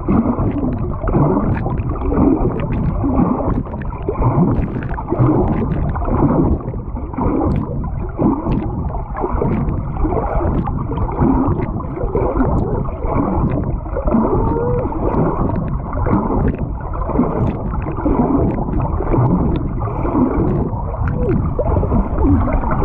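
Swimming heard underwater through a GoPro: continuous muffled churning and gurgling of water and bubbles stirred up by the swimmer's strokes.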